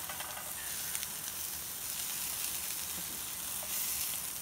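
Thin slices of meat sizzling in oil in a frying pan over a camp gas stove: a steady high hiss, with an occasional light click as chopsticks turn the slices.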